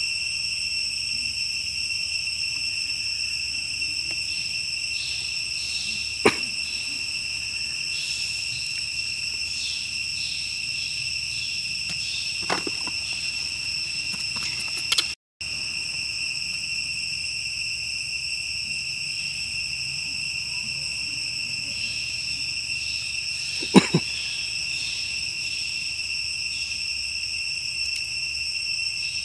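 Forest insect chorus: a steady, high-pitched shrill drone with a faster pulsing layer coming and going. A few short sharp clicks or knocks break through, the loudest a quick double one about 24 seconds in.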